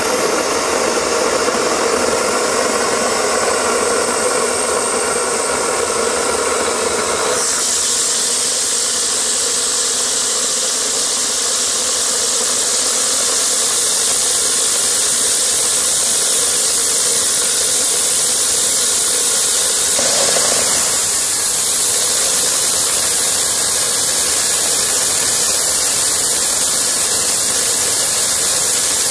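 Homemade gas turbine jet engine built from a turbocharger, running steadily with a loud rushing hiss of exhaust and a high turbine whine that climbs in pitch over the first several seconds. The sound changes abruptly about seven seconds in and again around twenty seconds.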